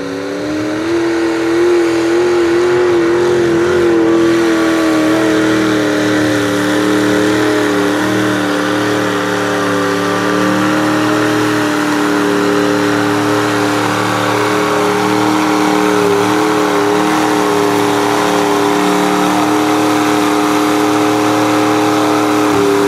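Mud bog truck's engine held at high revs through a mud pit, a loud steady drone over a hiss of churned mud and water. The pitch climbs in the first second and eases slightly lower about five seconds in before holding.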